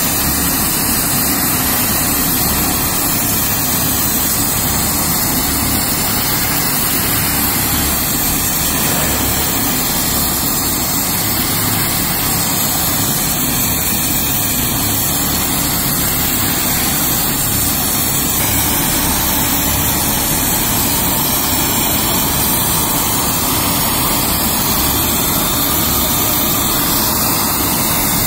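A gas heating torch burning steadily with an even rushing noise, preheating thick steel plate to about 150–180 °C before welding.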